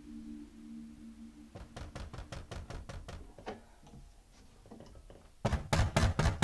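Loud, rapid knocking on a wooden front door that starts about five and a half seconds in, after a run of fainter, quicker taps. A low steady hum at the start stops about a second and a half in.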